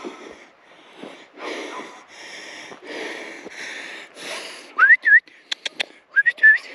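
Hard, heavy breathing, then two loud, short whistles about a second and a half apart, each a quick rising note with a short second note, used to call; a few sharp clicks fall between the whistles.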